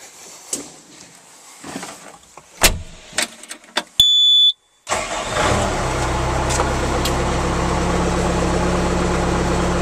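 A few knocks and clicks, a short high beep about four seconds in, then the Bobcat S130 skid steer's 49 hp Kubota four-cylinder non-turbo diesel starts at about five seconds and settles into a steady idle.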